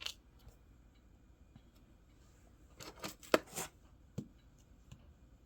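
Small clicks and clinks of metal jewelry being handled and set down on a table, with a quick cluster of sharp taps about three seconds in and a few single clicks after.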